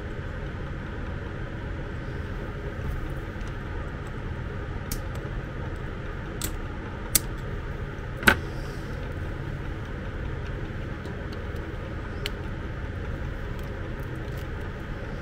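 A few sharp plastic clicks and taps as the parts of a 12 V cigarette-lighter plug are handled and fitted together by hand, the loudest about eight seconds in, over a steady low background hum.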